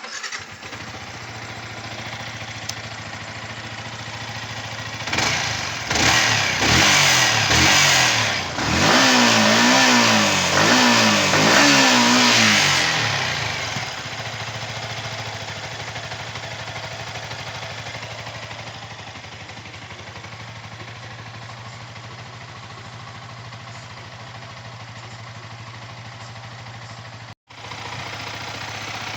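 Yamaha R15 V3's 155 cc single-cylinder engine idling, then revved in several quick blips with the pitch rising and falling, before settling back to a steady idle. This is the engine's valve-train sound played for checking after a rocker arm replacement meant to cure a noise.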